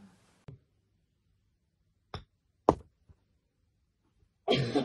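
A few sharp knocks in a quiet room: a faint tap, then two knocks about half a second apart, the second louder. Near the end a voice bursts in.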